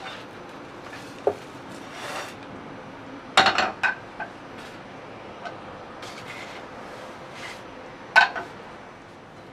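Clinks and knocks of a frying pan and utensils being handled: a single tap about a second in, a short cluster of clatter around three and a half seconds, and another sharp clink near the end.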